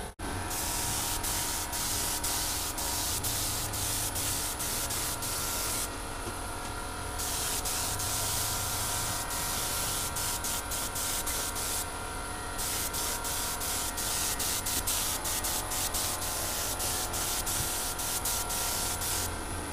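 Compressed-air gravity-feed spray gun hissing as it lays on a white base coat, in long bursts with two short breaks about six and twelve seconds in.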